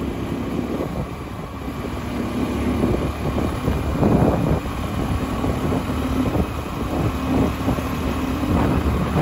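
Small engine of a Cub step-through motorbike running steadily at riding speed, with wind buffeting the microphone.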